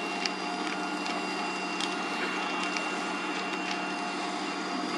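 Steady drone of fire-engine pumps running, with a constant whine, broken by a few sharp cracks from the burning caravans.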